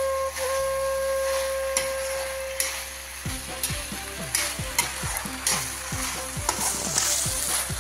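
A metal spatula stirring pork and potatoes frying in a metal wok, with a steady sizzle and repeated sharp scrapes against the pan. A held flute note from background music sounds over the first three seconds and then stops.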